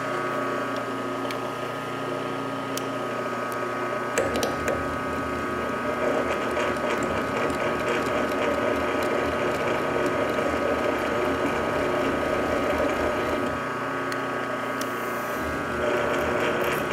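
PM-940M milling machine drilling tool steel with a 27/64-inch drill at slow spindle speed. A steady whine runs throughout, and from about four seconds in a rough groaning and grinding comes from the cut, which appears to be caused by the mill's column and head flexing.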